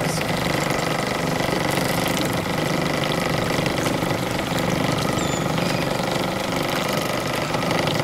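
Steady, even hum of a fishing boat's motor running, holding one pitch without change.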